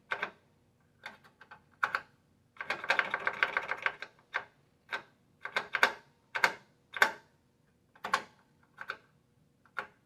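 Push-button keys on a Potter PFC-4410 fire alarm control panel clicking as the SET key is pressed over and over, about once a second, with a quick run of rapid clicks about three seconds in.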